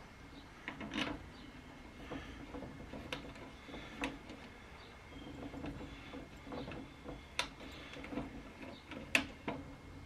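Scattered small clicks and taps of metal hardware being handled as a bolt is fitted by hand into a gate lock on a steel door frame, the sharpest click about nine seconds in.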